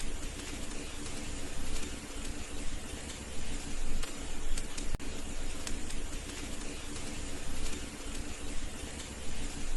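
Wood fire burning in a fireplace: a steady hiss with an occasional sharp crackle or pop.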